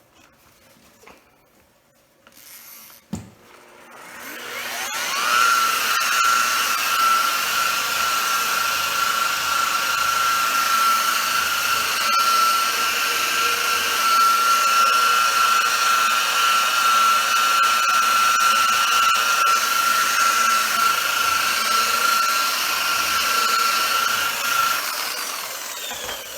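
Electric rotary buffer with a wool pad, buffing a plastic headlight lens with number 4 compound: a click, then the motor spins up with a rising whine and runs at a steady pitch, winding down near the end.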